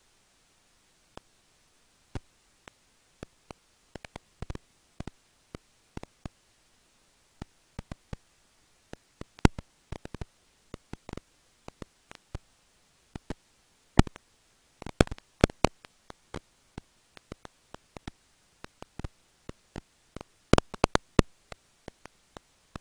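Irregular sharp clicks and ticks from serotine bats in their roost, a few a second and bunched into quick clusters now and then, with near silence between them.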